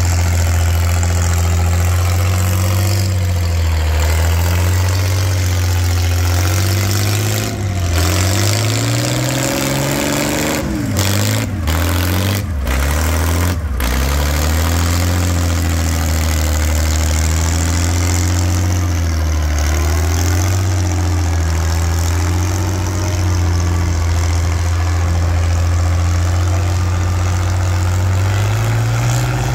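Farmall 460 tractor engine running hard under load as it pulls a weight-transfer sled. Its pitch sags and recovers several times around the middle as it lugs, and climbs near the end.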